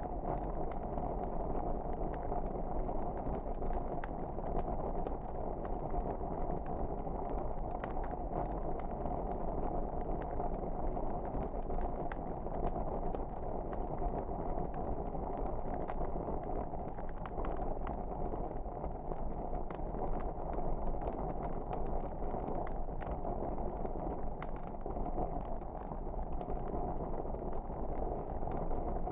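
Wood fire burning in a fireplace: a steady low rush of flame with many small, sharp crackles and pops scattered all through.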